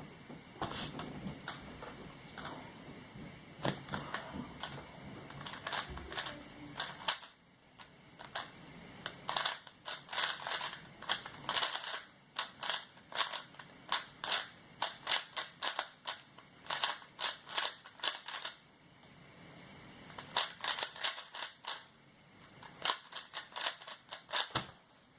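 Transparent YJ YuLong 3x3 speedcube being turned quickly, its plastic layers clicking in fast runs of turns with short pauses between runs. The cube is very tight.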